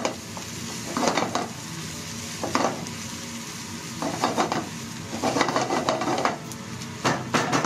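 Sliced onions and green pepper sizzling in a nonstick frying pan, starting to soften and change colour, with a spatula scraping and stirring them in strokes about every one to two seconds.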